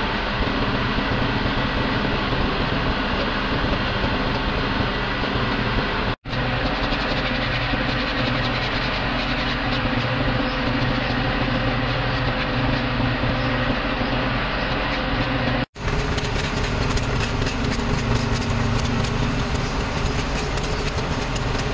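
A machine running steadily with an even, continuous drone. It cuts off abruptly twice for an instant, about six and sixteen seconds in.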